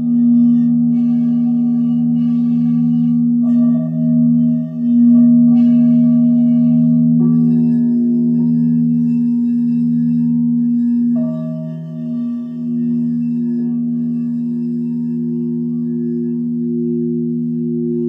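Singing bowls ringing in overlapping sustained low tones that pulse slowly. A fresh bowl is struck three times, about every four seconds, each strike adding higher ringing overtones over the drone.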